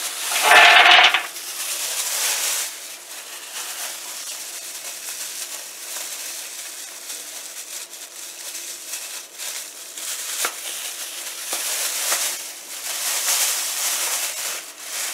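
Mixed nuts (walnuts, cashews, almonds, Brazil nuts) tipped out of a plastic bag onto a metal baking tray, rattling loudly in the first second. Then the plastic bag rustles and crinkles, with a few single nuts clicking onto the tray.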